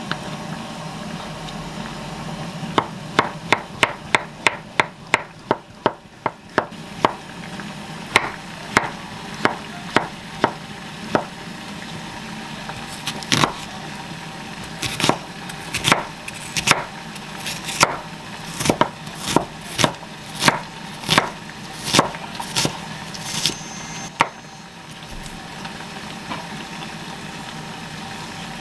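Kitchen knife chopping on a wooden cutting board: a quick run of sharp knocks about four a second, then slower, evenly spaced cuts through an onion, stopping a few seconds before the end.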